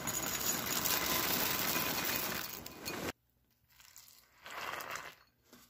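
Dry ring-shaped oat cereal pouring into a glass bowl, a dense rattle of small pieces striking the glass that stops abruptly about three seconds in. Then, more quietly, milk pours onto the cereal.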